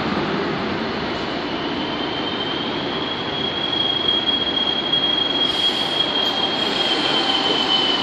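Passenger train rolling slowly into the station, with a steady rumble of wheels on rail. From about a second in, a single high, steady squeal from the wheels or brakes sounds over the rolling noise and holds to the end, loudest in the middle.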